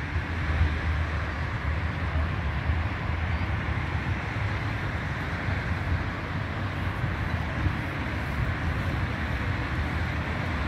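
Steady low rumble of outdoor background noise, even throughout, with no single sound standing out.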